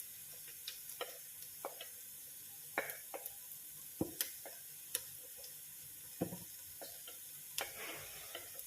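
Faint steady sizzling of vegetables sautéing in a pan, with light scattered clicks and taps of a utensil stirring against the pan.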